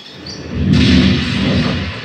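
A deep thunder boom with a rushing hiss from a Dolby Atmos demo soundtrack, played through a Saregama Carvaan 2.1 soundbar and its subwoofer. It swells up about half a second in and eases off near the end.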